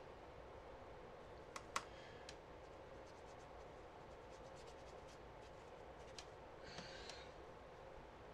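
Near silence: a faint steady hum, with two light clicks about a second and a half in and faint scratching of a paintbrush on watercolour paper near the end.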